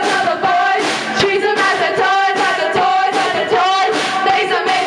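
Live band playing loud with electric guitars, a singer's voice over the top through the PA, recorded roughly through a camera's own microphone.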